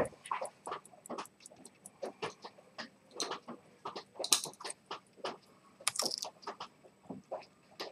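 Zenith pocket watch ticking fast and evenly, about five ticks a second, under irregular louder clicks and knocks from handling on the bench. Sharp metallic clinks come about four and six seconds in.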